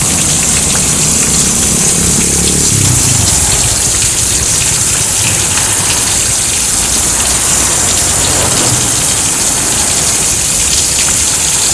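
Heavy rain falling in a steady, dense hiss, with a low traffic rumble beneath; in the first few seconds a passing vehicle's sound drops in pitch as it goes by.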